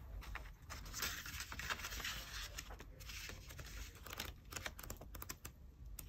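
Pages of a small sketchbook being turned and handled by hand: faint paper rustling with many light, irregular clicks and flicks.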